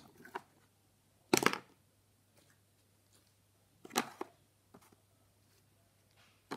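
A few sharp knocks and clacks of small plastic slime cups being handled and set down, the loudest a quick rattle of several knocks about a second and a half in and another about four seconds in.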